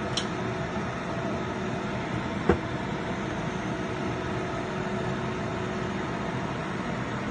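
Steady low hum and hiss with a faint steady tone in it, broken by a single sharp click about two and a half seconds in.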